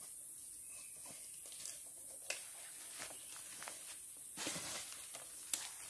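Faint handling sounds around a parked, engine-off log-hauling motorcycle: a few light knocks and a brief rustle of footsteps on leaf litter about four and a half seconds in, over a steady high hiss.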